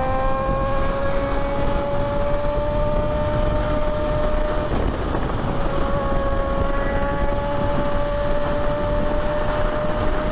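Sportbike engine running under way at road speed, its whine climbing slowly, dropping briefly about halfway through, then climbing again. Heavy wind rush on the microphone runs under it.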